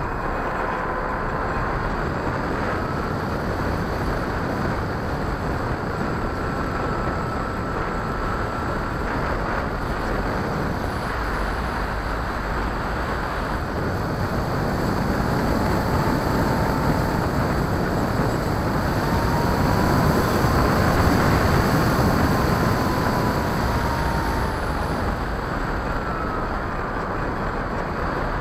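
RC airplane's motor and propeller in flight, heard from the onboard camera with a steady rush of wind over the airframe. A thin whine rises and falls in pitch several times, and the sound swells for a few seconds past the middle.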